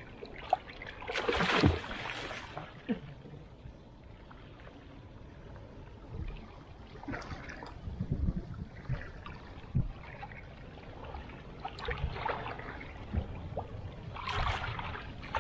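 Water splashing and sloshing beside a small boat's hull as a hooked roosterfish thrashes at the surface and is grabbed by hand, with a loud splash about a second and a half in and another near the end.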